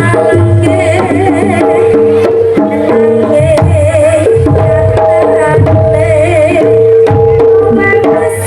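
Jaranan music played loud over a sound system: kendang hand drums beating under gamelan tones and a wavering melody line.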